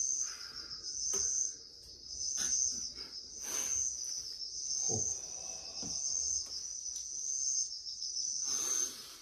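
Recorded early-autumn insect chorus: a cricket chirping high-pitched in short pulses about once a second, steady throughout. Faint soft clicks sit underneath, and a brief falling low sound comes about five seconds in.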